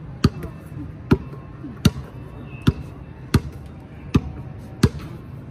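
Basketball dribbled on a hard surface: seven steady bounces, about one every three-quarters of a second.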